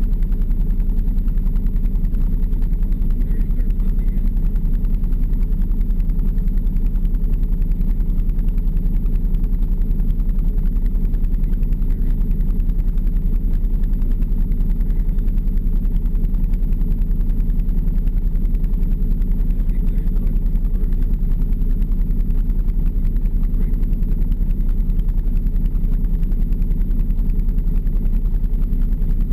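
Engine of a stopped off-road vehicle idling steadily: an even, low-pitched hum with no revving.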